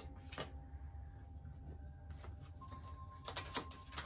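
Tarot cards being shuffled and handled, making a few soft flicks and taps that cluster near the end. Quiet background music holds a steady tone underneath.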